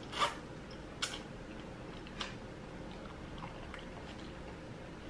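A person slurping a forkful of noodles, loudest about a quarter-second in. A few shorter, softer mouth sounds of chewing follow.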